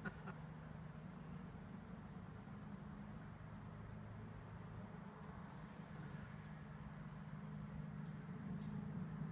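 Quiet ambience: a steady low hum with a faint high-pitched chirp repeating about twice a second.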